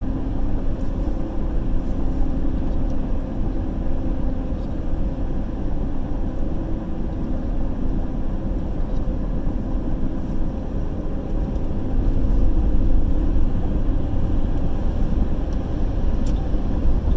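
A road vehicle driving at speed: a steady engine drone with road rumble, growing a little louder about twelve seconds in.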